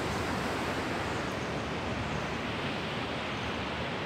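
Steady rushing noise of wind buffeting the microphone, mixed with the wash of surf.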